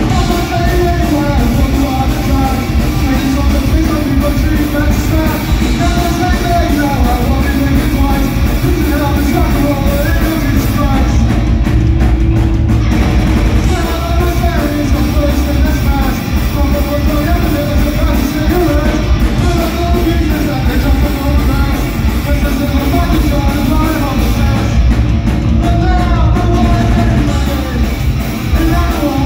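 Loud, heavy rock band playing, with a singer shouting over the instruments throughout.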